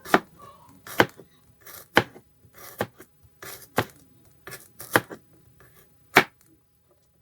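Knife slicing garlic cloves on a cutting board: sharp knocks of the blade against the board about once a second, with softer cuts between.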